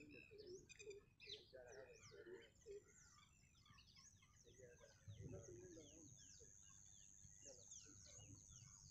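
Faint outdoor chorus of many small birds chirping, with quick falling chirps throughout and a steady high-pitched tone behind them.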